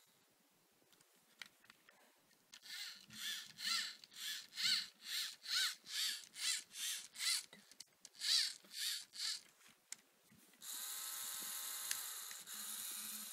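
Small electric motor of a Lego Mindstorms drill car whining in a quick run of pulses, about two a second, each rising and falling in pitch. It then runs steadily near the end, spinning the drill bit.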